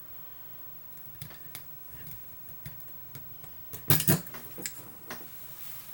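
Laminated steel padlock being picked with a hook and tension wrench: small, light metallic ticks of the tools and pins, then a few louder sharp metallic clicks about four seconds in.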